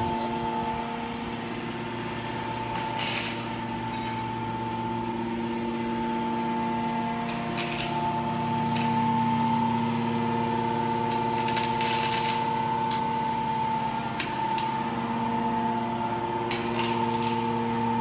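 Scrap metal baler's hydraulic power unit running: the electric motor and pump give a steady hum, with several short bursts of noise over it.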